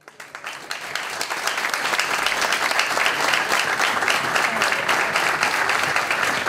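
An audience applauding in a room, the clapping building over the first second or so and then holding steady.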